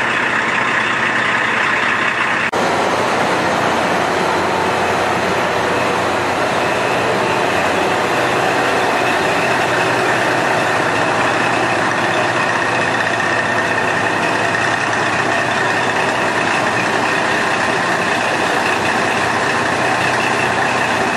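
A JNR KiHa 12 diesel railcar's DMH17 diesel engine idling steadily at the platform, with a short break about two and a half seconds in.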